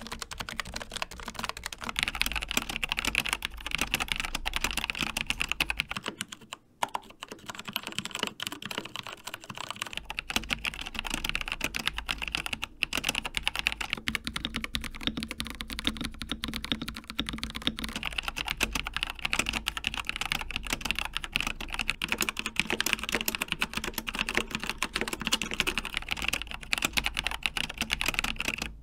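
Fast, continuous typing on a succession of mechanical keyboards, one after another: Kailh Brown, Gateron Brown, Akko Cream Yellow, then Logitech GX Brown switches. The key clatter breaks off briefly where one board gives way to the next.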